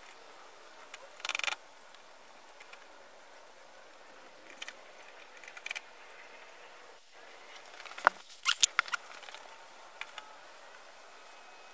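Hands handling and fixing a small bird-feeder house in place: a short rustle about a second in, a few faint ticks, then a quick run of sharp clicks and knocks about eight seconds in.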